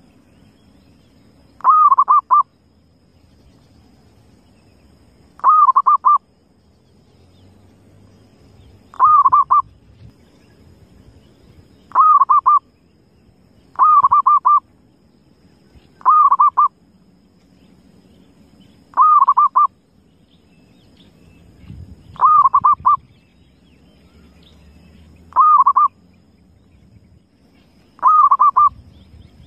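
Zebra dove (perkutut) cooing ten times: each call is a short, quick run of a few notes, under a second long, repeated every two to three seconds over a faint steady low background noise.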